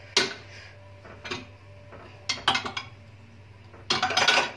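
Dishes and kitchen utensils being handled and set down on a counter: separate sharp clinks and knocks, a quick cluster of them about halfway through, and a longer noisy clatter near the end.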